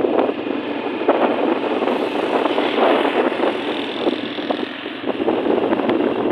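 Wind buffeting the microphone on a moving Honda motorcycle, with the bike's engine running underneath; the rush rises and falls unevenly.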